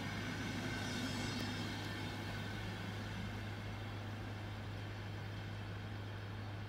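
Passenger coaches of a departing train rolling away, the wheel-on-rail noise fading over the first two seconds, over a steady low hum.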